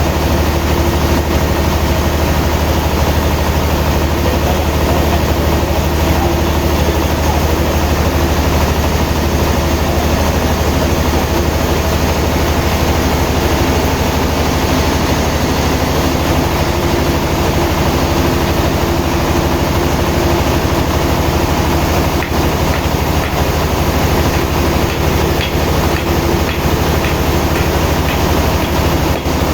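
Sawmill machinery running steadily, a loud, even engine hum with no pauses.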